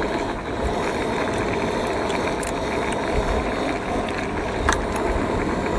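A steady rumbling noise with a few faint clicks.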